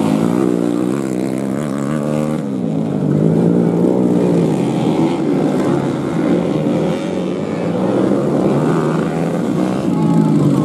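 Underbone (bebek) motorcycle engines racing on a dirt track, revving up and down as riders work the throttle and shift gears over the jumps, the pitch rising and falling every second or two.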